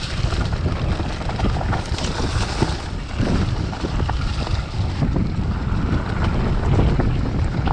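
Wind buffeting the microphone over the rumble and rattle of a mountain bike riding a rough trail, with many short knocks from the bike and tyres over bumps.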